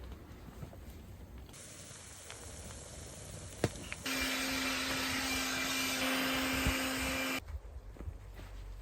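A small electric motor with a rushing, airy noise and a steady hum, running for about three seconds and starting and stopping abruptly.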